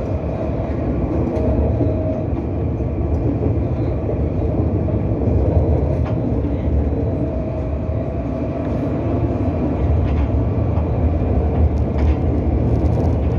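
Grenoble line A tram running along at speed, heard from inside the car: a steady low rumble of the wheels on the rails that holds even throughout.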